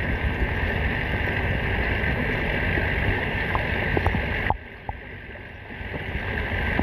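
Muffled steady rush of water from a pond fountain, heard through a phone held underwater. It drops suddenly about four and a half seconds in, then builds back up.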